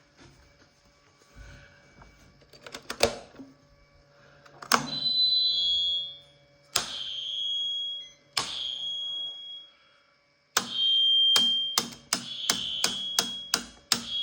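A series of sharp clicks, each followed by a high ringing tone that lingers a second or two and fades. Five come spaced a couple of seconds apart, then about six in quick succession near the end. It is the strange ringing that answers any sharp sound throughout the house, which the owner blames on the electric power.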